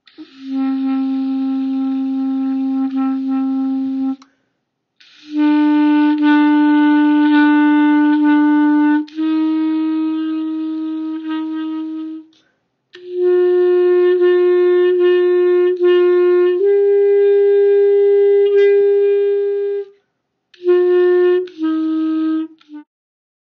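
Clarinet playing a slow exercise of long held notes, each about three to four seconds, climbing step by step in pitch with short breaks for breath between them. Near the end come two short notes that step back down.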